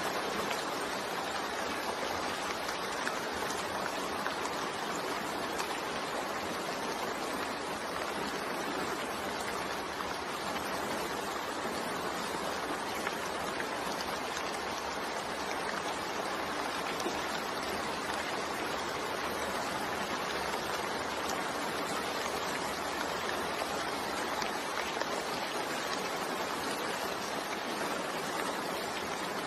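Steady rain falling, an even hiss that holds without change and has no thunder.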